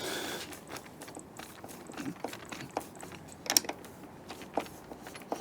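Irregular small clicks and knocks of metal hardware being handled and worked by hand while fitting the deadbolt's door strike and its screws.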